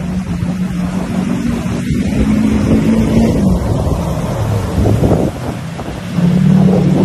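Lifted pickup truck's engine pulling hard as it drives through shallow surf, with water spraying off the tyres and wind on the microphone. The engine note steps up and gets louder about six seconds in.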